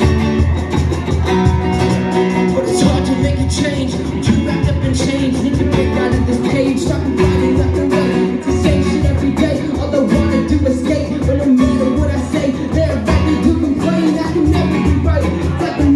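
Live acoustic music from a guitar-and-cajón duo: a steel-string acoustic guitar played with a steady beat slapped on a cajón, and a man singing over it.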